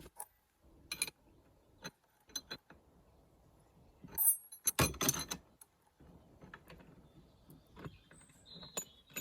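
Metal tools clinking and knocking as a small puller is fitted to and worked on a car's wiper arm to pull it off. Scattered sharp clicks, with a cluster of louder knocks about four to five seconds in.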